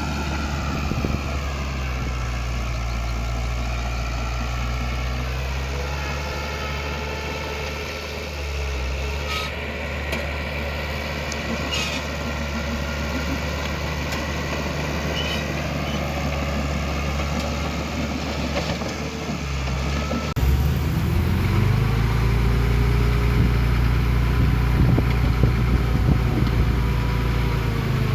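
Heavy diesel earthmoving machinery running steadily. About two-thirds of the way through the engine sound changes abruptly and becomes louder and deeper.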